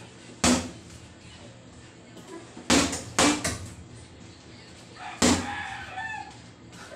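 Boxing-gloved punches landing on a hanging vinyl heavy bag: four heavy thuds, the middle two in quick succession.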